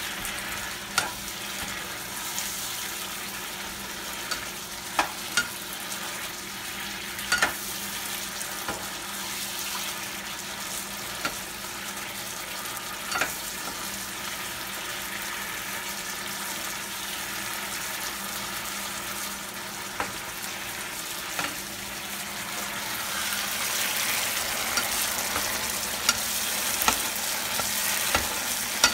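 Shrimp in coconut sauce sizzling steadily in a nonstick frying pan, with sharp clicks and scrapes now and then from a slotted spatula stirring it against the pan. The sizzling grows louder near the end.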